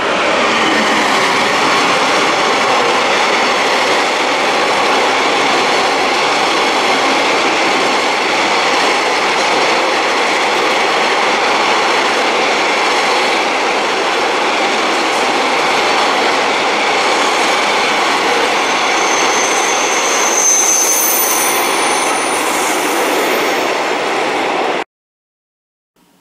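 A train of wagons running past at close range, a loud steady rumble and rattle of wheels on the rails. A high squeal joins in for a few seconds near the end, and the sound cuts off suddenly.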